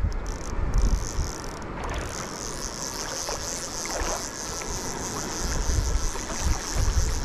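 Wind buffeting the microphone with a low rumble. A steady high insect buzz sets in about two seconds in.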